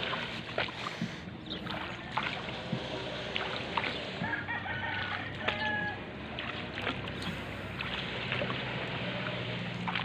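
A rooster crowing a few times around the middle, over small knocks and a low steady hum.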